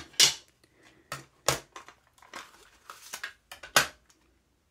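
Plastic compact cassettes and their hard plastic cases being handled, giving a string of irregular clicks and clacks. The sharpest come just after the start, about a second and a half in, and near the end.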